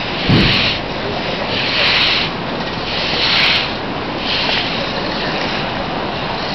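Steady rushing of a flooding river. Rhythmic swishes come about once every second and a half, and a short low thud sounds just after the start.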